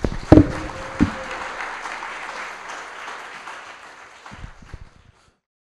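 Audience applauding at the end of a talk, the clapping fading and cutting off about five seconds in. A couple of low thumps sound in the first second.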